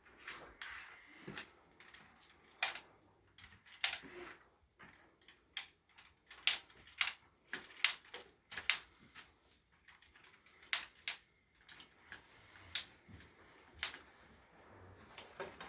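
Irregular light clicks and knocks of plastic LEGO pieces being handled and set down on the game table, about fifteen over the stretch, some in quick pairs.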